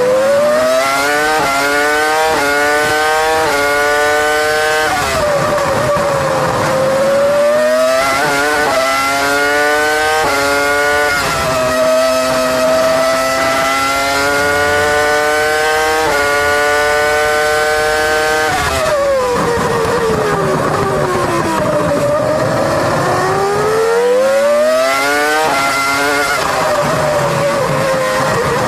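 Toyota 3.0-litre V10 Formula 1 engine heard onboard at full race pace. Its pitch climbs in quick steps through several upshifts, holds high down the straight, then falls steeply as the car brakes and downshifts about two-thirds of the way in, before climbing through the gears again and dropping near the end.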